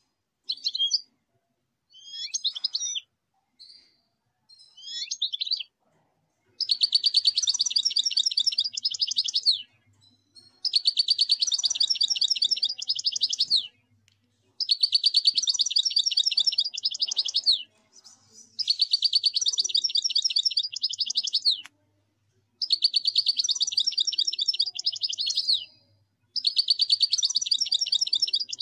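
Common linnet singing: a few short chirps, then six bouts of rapid, high twittering song, each about three seconds long with a pause of about a second between.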